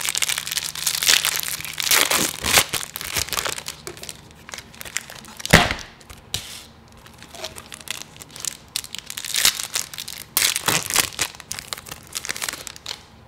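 Clear plastic wrapper of a Yu-Gi-Oh! trading-card pack being torn open and crumpled by hand: a run of crackling crinkles, densest in the first half, with one sharp snap about five and a half seconds in and a few more crinkles later.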